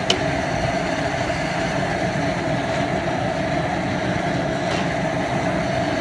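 Propane jet burner running steadily under a large pot of boil water, a constant rushing noise with a steady hum in it.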